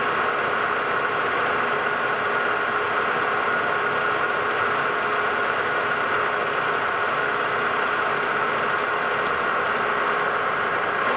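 Metal lathe running steadily under power feed, its gear train giving a steady whine, while the carriage takes a light thread-cutting pass.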